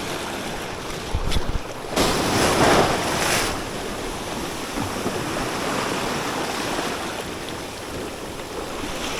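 Sea waves washing against rocks, with one wave surging and breaking louder about two seconds in, then settling to a steady wash. Wind rumbles on the microphone.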